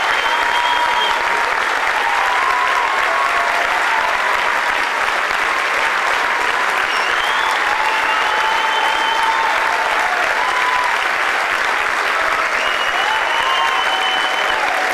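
Large audience clapping steadily, a dense, unbroken applause for an award.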